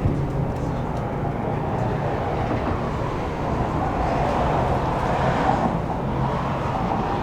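Car running, a steady engine and road noise.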